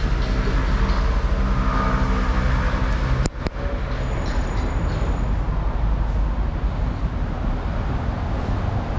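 City street traffic rumble from passing and idling vehicles. A heavy engine's steady drone stands out over the first three seconds, and a single sharp click comes a little over three seconds in.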